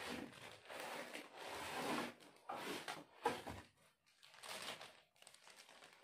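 Packaging handled while a laptop in a plastic wrap is lifted out of its cardboard box: rustling and scraping for about two seconds, then a few short rustles and scrapes.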